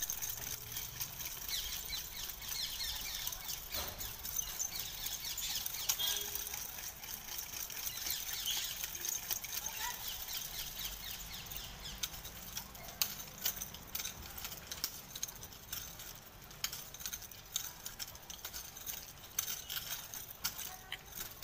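Birds chirping over a steady outdoor hiss, with scattered sharp clicks that come more often in the second half.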